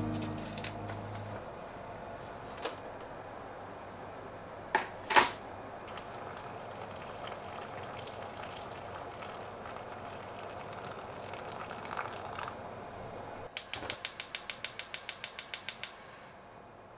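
A few light knocks from kitchen handling, then near the end a fast, even run of about a dozen sharp clicks, roughly five a second, lasting about two and a half seconds.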